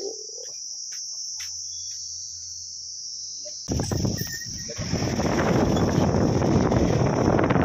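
Steady high-pitched insect chirring over a quiet background. About four seconds in, this gives way to the rushing noise of a moving vehicle with wind buffeting the microphone at the side window, which grows louder, while the insect chirring carries on above it.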